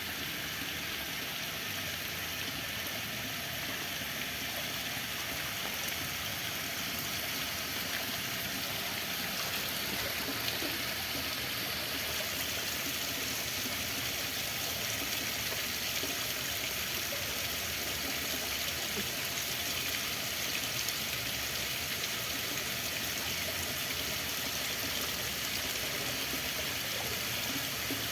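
Running water: a steady, even rush of flowing water, with no breaks or separate splashes.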